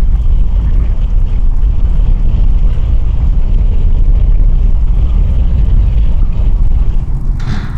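Loud, steady deep rumble of a heavy engine or craft, its sound concentrated in the low end. A short burst of hissing noise comes near the end.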